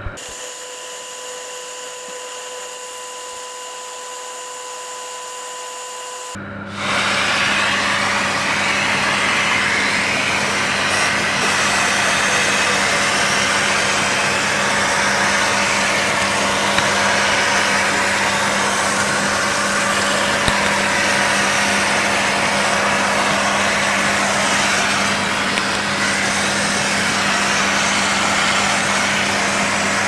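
Samsung 1600W vacuum cleaner running, heard from inside its dust compartment: a steady hum with rushing air that jumps suddenly much louder about six and a half seconds in and then holds steady.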